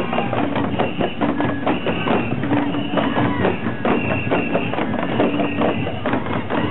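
Festival procession music: fan drums (uchiwa-daiko) beaten in a rapid, unbroken clatter of strikes, with short held high notes coming and going about once a second and crowd voices underneath.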